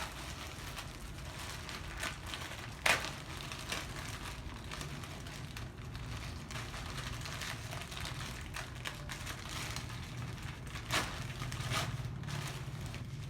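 A parcel's plastic packaging being opened by hand: rustling and crinkling with scattered clicks, two sharper snaps about three seconds in and near eleven seconds, over a low steady hum.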